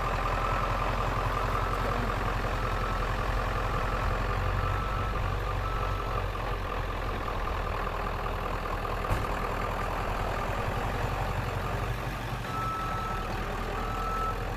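A vehicle engine idling steadily with a low rumble, with a faint high beep repeating at intervals over it.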